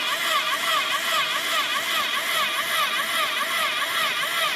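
Small electric motor of a drilling machine model running with a whine whose pitch wavers up and down about four times a second.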